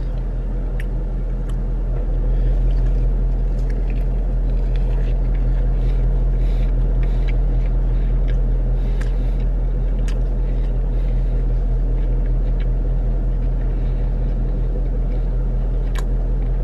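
Steady low hum of a car idling, heard from inside the cabin, a little louder about two seconds in. Faint chewing clicks sound over it.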